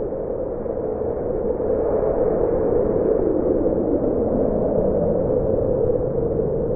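A steady rushing rumble from a sound-effect track, with no distinct hits, growing slightly louder about two seconds in.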